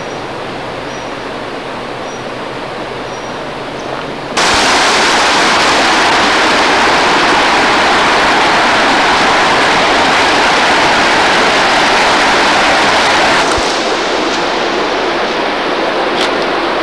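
Steady rushing of a shallow stream running over rocks. It starts abruptly about four seconds in and drops back to a quieter steady hiss near the end. Before it there is a softer hiss with a faint high chirp repeating about once a second.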